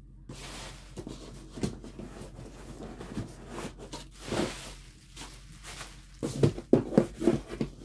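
Large cardboard guitar shipping box being turned and handled: cardboard scraping and rustling, with a quick run of knocks and thumps on the box near the end.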